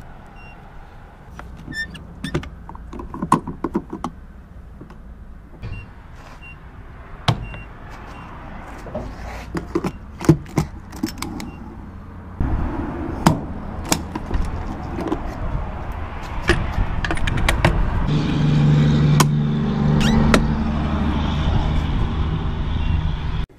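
Sharp knocks and clicks from a handheld camera being carried around a car. About halfway in, a louder steady low mechanical hum joins them and builds until it cuts off suddenly.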